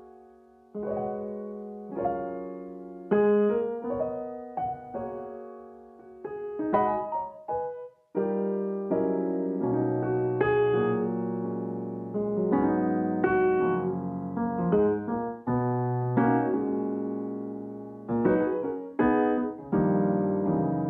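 Background piano music: struck notes and chords that ring and fade, with a brief pause partway through, after which the playing grows fuller.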